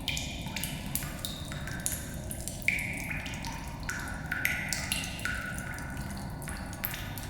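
Cave water drips falling irregularly into pools, roughly two a second, each a short ringing plink at a different pitch that echoes away, over a steady low rumble of cave ambience.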